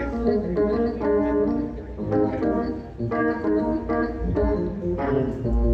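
Electric organ playing a run of held chords that change about once a second, over a steady low bass.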